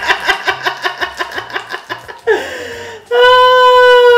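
A woman laughing in quick, rhythmic bursts, followed near the end by a loud, steady high held tone lasting about a second.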